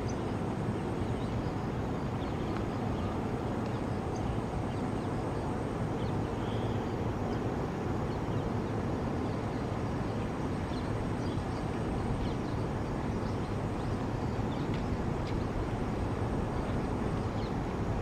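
Steady low outdoor rumble with faint, scattered short chirps of distant birds.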